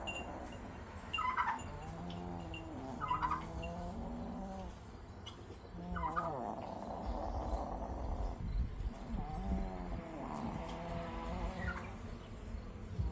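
A sleeping chicken snoring: a wavering, wheezy breath sound that repeats every two to three seconds, each with a short squeak.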